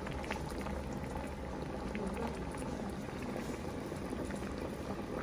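Food sizzling on a hot cooking surface: a steady hiss with scattered small crackles and pops.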